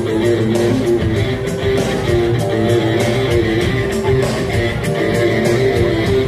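Music with a steady beat and sustained held tones.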